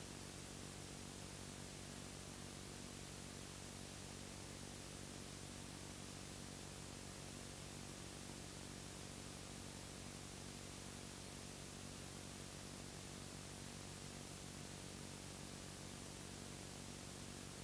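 Steady hiss with a low electrical hum underneath, unchanging throughout: the noise floor of a video with no soundtrack.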